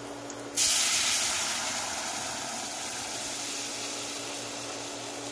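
Water poured into a hot stainless pot of oil with fried garlic and ginger, hissing and sizzling as it hits the hot metal: the hiss starts suddenly about half a second in, then slowly fades. A faint steady hum runs underneath.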